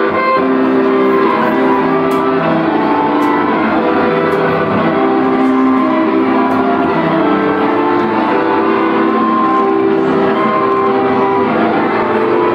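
Loud live band music, a melody of held notes stepping from one pitch to the next.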